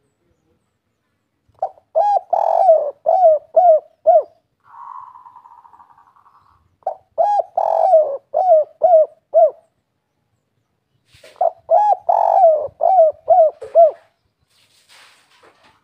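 Spotted dove (derkuku) cooing its 'kuk 3' song, with three phrases a few seconds apart, each a run of coos. A soft buzzy sound comes between the first two phrases.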